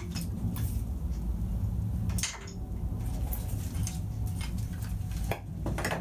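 Motorcycle wiring loom being worked out of a steel frame by hand: rustling wires with scattered metallic clicks and knocks, the sharpest about half a second in, just after two seconds and near the end, over a steady low hum.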